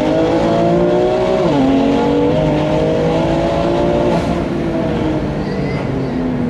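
Heavily tuned BMW M2 Competition's twin-turbo S55 inline-six accelerating hard under boost, heard from inside the cabin. The revs climb, drop sharply at an upshift about a second and a half in, climb again, then ease off near the end.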